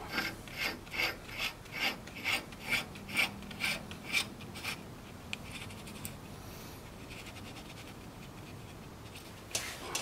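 Bearing lock nut on a TCM FG25N2S forklift's front axle spindle being turned by hand: about eleven short, even metal-on-metal rasps of the threads, roughly two a second, for the first four and a half seconds. A brief knock comes near the end.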